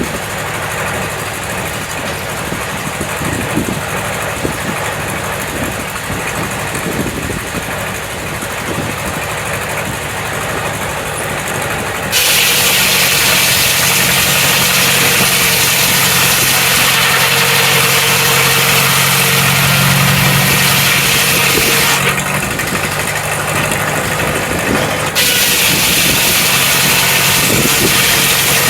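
Sawmill engine running steadily. About halfway through, a loud high hiss suddenly joins it, drops out for a few seconds and comes back.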